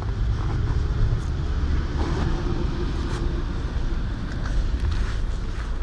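A steady low rumble with a few faint light clicks and rustles.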